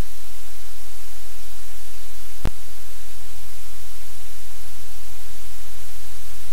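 Loud, steady static hiss with a low electrical hum, the noise of the live cam's audio line, which buries the room sounds. A single sharp click, with a brief dropout, comes about two and a half seconds in.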